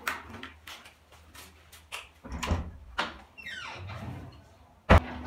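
Handling noises: a plastic carrier bag rustles and a few knocks and steps sound as a helmet and bag are picked up and carried to the door. Near the end a door shuts with a single sharp bang, the loudest sound.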